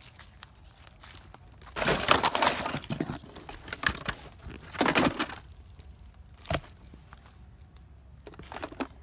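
Plastic toy vehicles tipped out of a cardboard box, clattering onto one another and onto dry leaf litter in a burst of knocks and rustling about two seconds in. Further short clatters and a single sharp knock follow as the toys are moved about.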